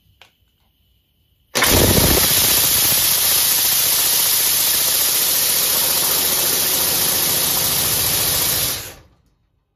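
Homemade compressed-air engine run on air through a hand valve: a loud, steady rush of exhausting air with rapid pulsing. It starts suddenly about a second and a half in and shuts off about nine seconds in.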